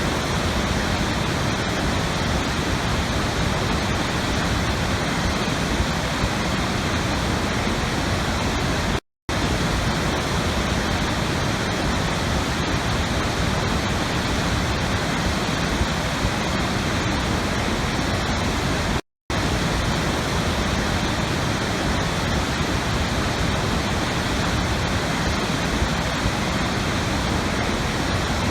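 Steady rushing water, an even, unbroken roar like a waterfall. It cuts out to silence for a split second twice, about ten seconds apart, where a recording loop restarts.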